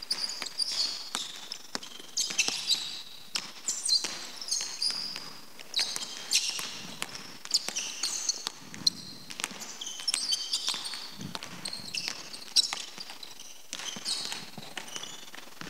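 A basketball being dribbled on a hardwood court in irregular bounces, with sneakers squeaking on the floor as the ball handler and the defender shuffle and change direction.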